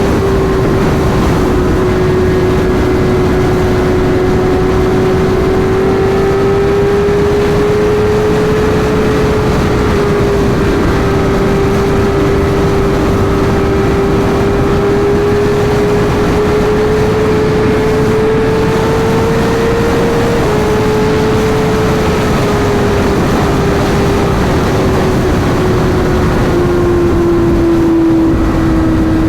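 Sport bike engine running at high, steady revs at highway speed, under heavy wind rush. The pitch drifts up and down slightly with the throttle, steps briefly twice, and eases down near the end.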